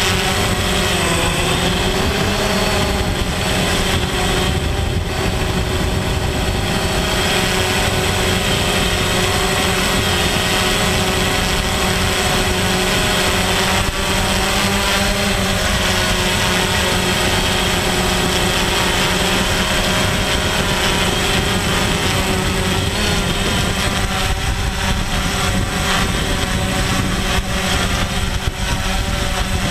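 DJI Phantom quadcopter's motors and propellers running, heard up close from the drone's own camera: a steady buzzing whine made of several held tones over a rushing noise, dipping briefly in pitch about a second in.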